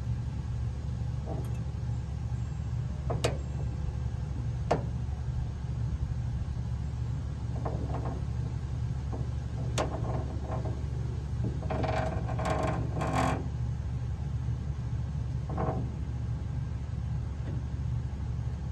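Masterbuilt rotisserie running: a steady low motor hum as the square spit rod turns in its bushing, broken by a few sharp clicks and short squeaky creaks, the longest about twelve to thirteen seconds in.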